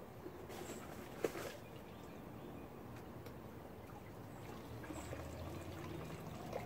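Creek water trickling faintly, with a few light knocks and rustles.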